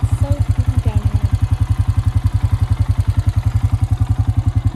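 Quad ATV engine running steadily, with an even, fast, pulsing beat.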